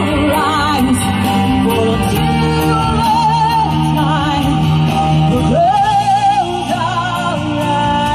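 Slow ballad music: a held melody line with wavering vibrato over sustained accompaniment, with a long rising note a little past the middle.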